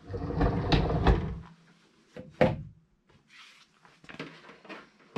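A folded Dripex walking-pad treadmill being tipped down and rolled on its transport wheels over a tile floor, a low rumble for about a second and a half. It is then set down flat with a knock about two and a half seconds in, followed by a few lighter knocks.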